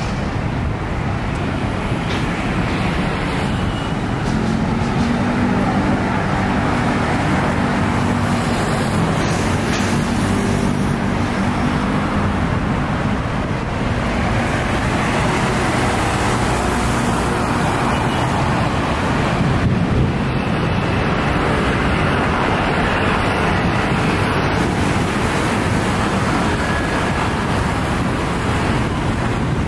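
Steady road traffic from cars and motorcycles driving along a busy multi-lane city road. A low engine drone stands out from about four to twelve seconds in.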